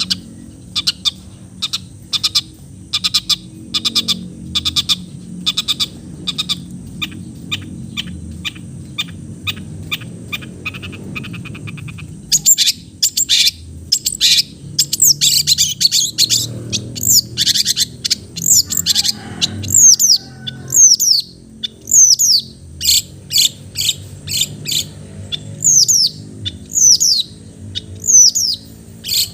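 Long-tailed shrike (cendet) singing: a long run of rapid, sharp chips, then louder, busier song with mimicked calls, ending in a series of downward-sliding whistles about one a second.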